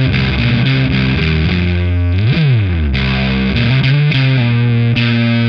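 Heavily distorted electric guitar playing a slow, sustained riff through a Kuro Custom Audio Exegol, a Sunn Model T-style preamp pedal. Held chords ring out, with a slide up and back down about two seconds in.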